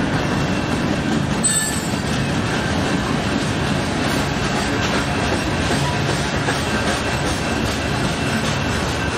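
Union Pacific freight train rolling past: a steady rumble of wheels on the rails, with faint, thin squealing from the wheels and a brief high screech about a second and a half in.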